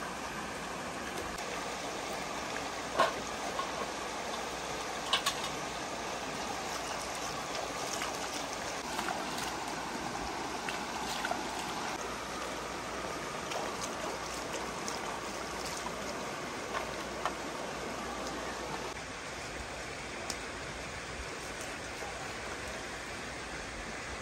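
Shallow stream flowing steadily over stones, with a few sharp clicks in the first several seconds.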